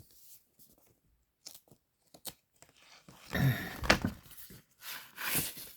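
Paper and cardboard rustling and sliding as record sleeves and inserts are handled, after a few faint clicks; the rustling comes in two spells, about three seconds in and again near the end.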